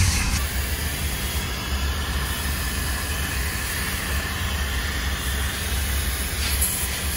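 Self-service car-wash vacuum and air station running: a steady rush of air through the hose over a constant low motor hum.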